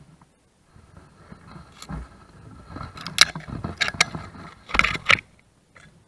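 Gear knocking and scraping against a kayak: a run of clicks and knocks starting about a second in, loudest around three seconds and again just before five seconds, then stopping.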